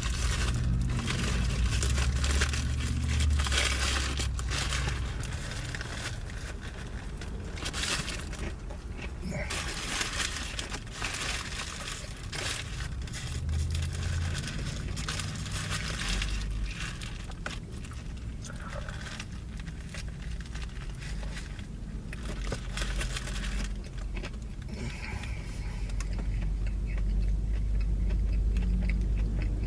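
Paper sandwich wrapper crinkling and rustling while a hot crispy chicken sandwich is handled and unwrapped, in irregular spells with short pauses, over a low steady rumble.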